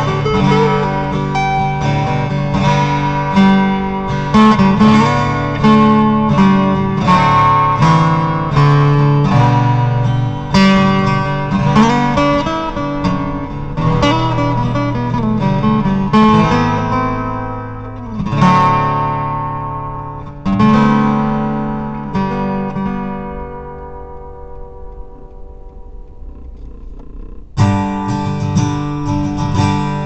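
Instrumental background music of plucked guitar. Past the middle it thins to a few ringing chords that fade away, and a new piece starts abruptly near the end.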